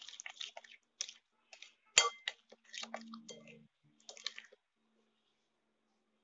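Metal spoon stirring a thick, wet yogurt-and-spice marinade in a glass bowl: irregular squelchy scraping, with one sharp ringing clink of the spoon against the glass about two seconds in.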